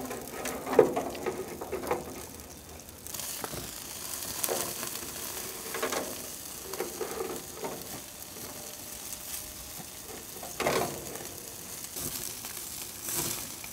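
Whole rainbow trout sizzling on a hot grill in a wire fish basket, a steady hiss that grows louder about three seconds in, with a brief knock about eleven seconds in.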